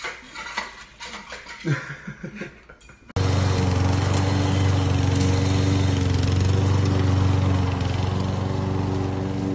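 Small clinks and clicks of a pug puppy eating from a metal bowl. About three seconds in, these give way suddenly to the loud, steady running of a gasoline walk-behind lawn mower engine.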